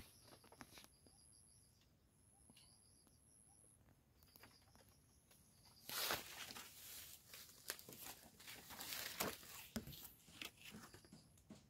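Irregular rustling and crackling from about six seconds in, as someone moves through the trees: footsteps on dry fallen leaves and plastic fruit bags brushing. Before that it is nearly quiet, with faint high-pitched trilling in the background.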